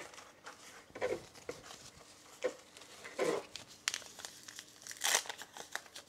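Paper tea bag wrappers crinkling and tearing open as tea bags are unwrapped by hand, in irregular short rustles, the loudest about three and five seconds in.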